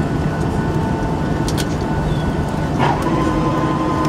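Steady cabin noise of a Boeing 757-200 rolling on the ground after landing: a low rumble of engine and wheel noise with a faint steady whine, and a couple of short sharp squeaks or clicks about one and a half and three seconds in.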